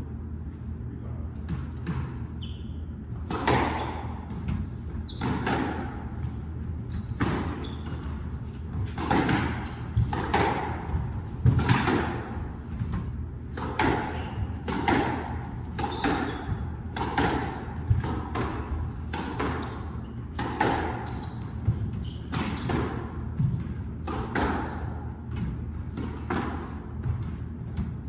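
Squash rally: the ball cracking off racquets and the court walls about once a second, each hit ringing briefly in the enclosed court, over a steady low hum.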